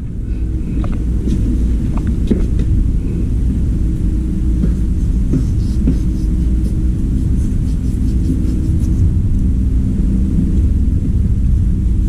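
Steady low rumble of running machinery, with a few light clicks of small parts and wires being handled.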